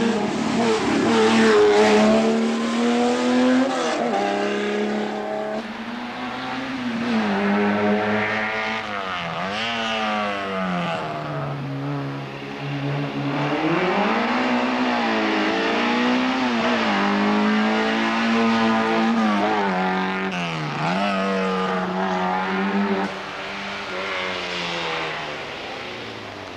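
Hillclimb race cars' engines accelerating hard up the course, one car after another: each note climbs steeply and drops back at every gear change, with a few deeper lifts where the cars brake into bends.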